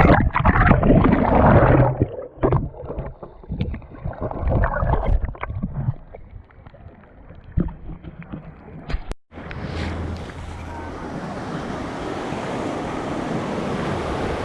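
Muffled, irregular gusts of water splashing and wind rushing over the GoPro's microphone. About nine seconds in, after a sudden cut, there is the steady wash of ocean surf with wind.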